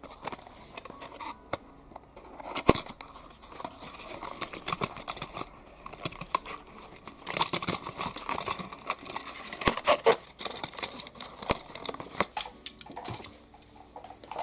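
Small cardboard window box and its plastic insert handled and opened by hand: crinkling, rustling and many sharp clicks, busiest in the second half as the die-cast car is worked out of the packaging.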